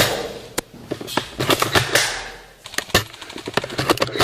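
Airsoft guns firing: sharp single shots spaced through the first half, then fast bursts of automatic fire in the second half.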